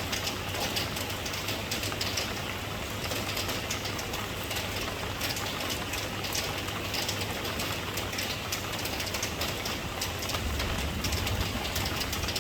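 Rain falling steadily, a dense hiss with many sharp individual drop impacts. A low rumble underneath grows stronger near the end.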